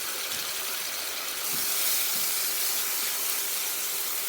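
Tomato, garlic, ginger and green chili sizzling in hot oil in a covered pan: a steady hiss that grows louder about a second and a half in.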